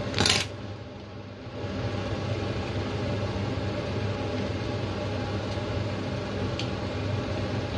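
A plastic sauce pouch crinkles briefly at the start. From about two seconds in, a steady motor hum with a low buzz runs on, with a couple of faint clicks.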